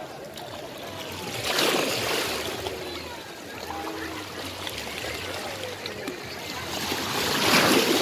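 Seawater sloshing and splashing, with two louder washes, one about a second and a half in and one near the end.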